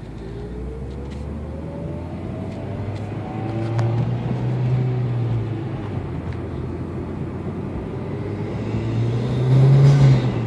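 2015 Mitsubishi Lancer Evolution X's turbocharged four-cylinder accelerating, heard from inside the cabin with a K&N intake. The engine note climbs for about four seconds, eases off, then swells again to its loudest near the end.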